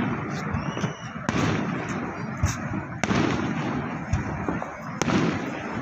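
Fireworks bursting: sharp bangs about a second in, again at three seconds and at five seconds, with smaller pops between, over steady background noise.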